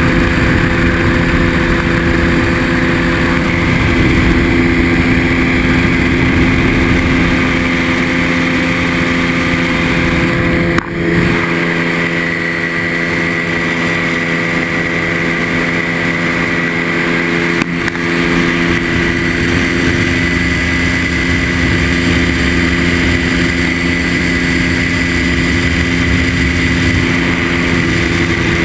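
Ultralight trike's engine running steadily in cruising flight, an even drone with wind rushing over the microphone. The sound dips briefly about eleven seconds in and again near eighteen.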